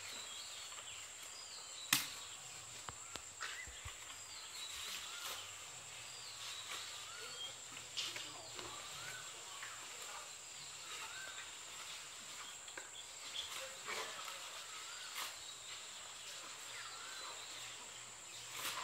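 Outdoor ambience of a steady high insect drone with many short, repeated bird chirps. A few sharp clicks or snaps, the loudest about two seconds in.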